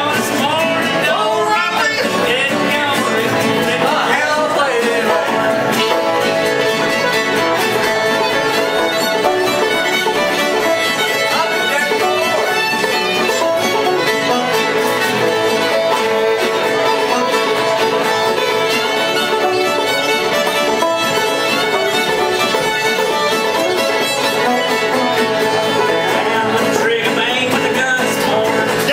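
A string band playing an instrumental stretch of a tune: a bowed fiddle carries the lead over a strummed acoustic guitar and a picked banjo.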